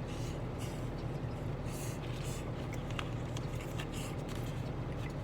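Steady low hum of an idling truck engine heard inside the cab, with scattered small clicks and smacks of someone eating.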